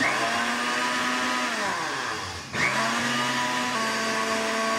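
Countertop blender motor blending a liquid, pulsed twice: it switches on, winds down about two and a half seconds in, then starts again and runs steadily.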